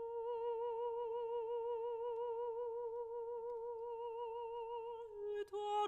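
Background music: a single melodic line holds one long note with vibrato, then moves to shorter stepped notes near the end.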